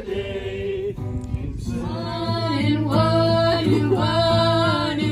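A group of people singing along to a strummed acoustic guitar, holding long notes. The singing swells louder about two seconds in.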